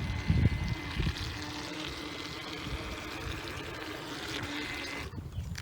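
Water splashing and trickling, with a thin steady whine from a radio-controlled boat's small electric motor; it breaks off suddenly near the end.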